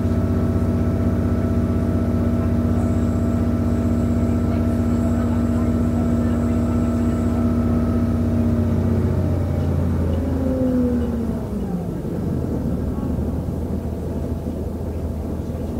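Onboard a VT 628.4 diesel railcar: its MTU 12V183 TD13 V12 diesel engine running steadily under power. About ten seconds in, the engine's pitch falls and the sound drops as it comes off power, leaving the rumble of the moving train.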